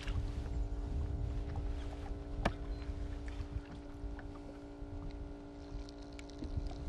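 Ambience aboard a small fishing boat on a lake: a low rumble of wind and water with a steady hum under it, and a single sharp knock about two and a half seconds in.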